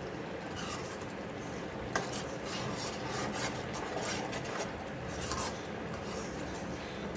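Spatula stirring and scraping a thick ginger mixture around a cooking pan in repeated short strokes, with a sharp click about two seconds in, over a steady low hum. The mixture is being cooked down until it thickens enough to set.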